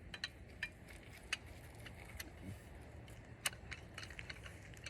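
Faint, scattered clicks and light metal clinks of the truck's jack kit parts being handled and snapped together, about half a dozen sharp ticks spread unevenly.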